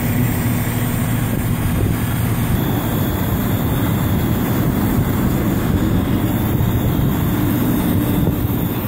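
Fire truck's diesel engine running: a loud, steady low drone.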